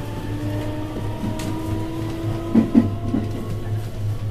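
JR West 321 series electric train accelerating, heard from inside the car. Its Mitsubishi IGBT VVVF inverter and traction motors give a whine that slowly rises in pitch over a steady low running hum, with a few thumps about two-thirds of the way through.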